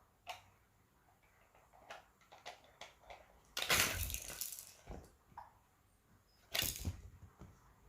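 Scattered small clicks and taps of baby toys being handled, with a rustling clatter about a second long about halfway through and a shorter one near the end.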